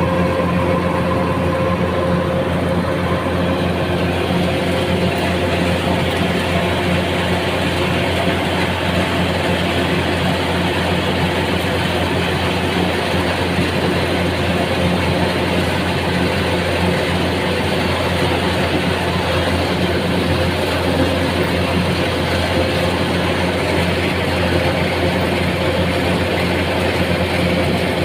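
A heavy engine of rice-harvesting machinery running steadily at an even speed, a constant low hum with noise over it.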